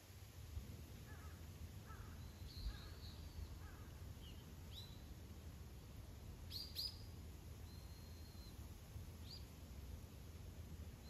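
Birds calling, faint: scattered high chirps and short whistled notes, a couple of quick upward-sweeping calls about six and a half seconds in, over a steady low background rumble.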